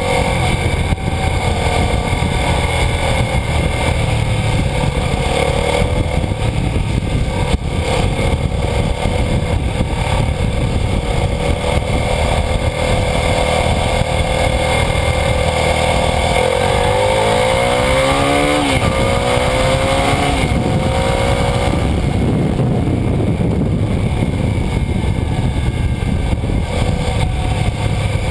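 Suzuki SV650's 645 cc V-twin engine running under way, heard from a camera mounted low by the rear wheel, with a steady rush of wind and road noise. About two-thirds of the way through, the engine revs rise in three or four quick sweeps, each dropping back before climbing again: the bike accelerating up through the gears.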